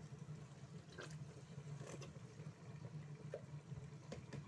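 Faint cooking sounds at a pot on a gas stove: a steady low hum with a few light clicks and knocks, as liquid tomato paste goes into the frying onions and pepper.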